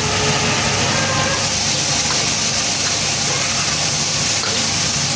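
Food sizzling and steaming in a wok over a running gas wok burner: a steady, dense hiss with no breaks.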